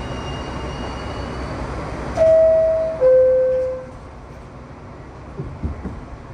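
R62A subway train at the platform with a low rumble and faint high whines that die away in the first second or so. Then a loud two-note descending door chime, ding-dong, each note just under a second long, followed by a few soft knocks.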